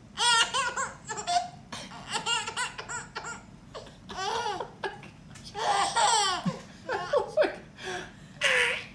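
Baby laughing in repeated high-pitched bouts with short pauses between them.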